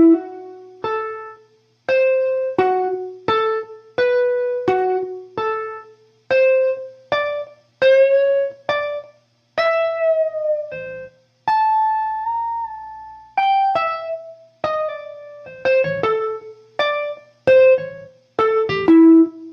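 Guitar playing a blues lick slowly, one plucked note at a time, about one to two notes a second, with a few notes bent upward in pitch.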